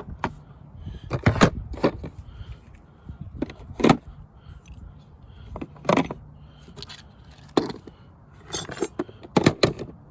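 Handling of a Ridgid modular plastic toolbox and the tools in it: irregular sharp clicks and knocks of plastic and metal with small rattles, with a close cluster of knocks near the end.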